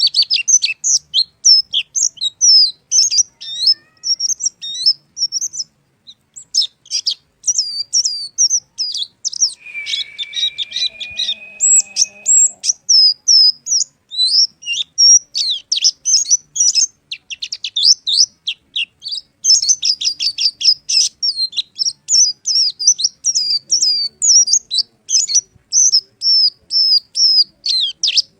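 Pleci (white-eye) singing gacor: a fast, continuous run of high, twittering chirps, with a brief pause about six seconds in. A long, slightly rising whistle lasts about two seconds near the middle.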